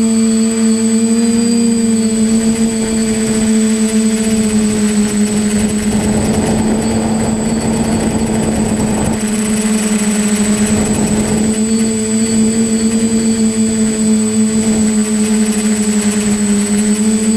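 A home-built TBS Discovery Pro quadcopter's motors and propellers hum steadily in flight, with a thin high whine above, heard from the drone's own camera. The pitch wavers slightly, and a rush of air noise rises over the hum from about six to nine seconds in.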